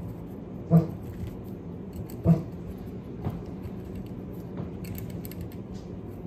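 Small metal clicks as a needle valve is screwed into an old Robin carburetor, with two short, low knocks about a second and a half apart over a steady low hum.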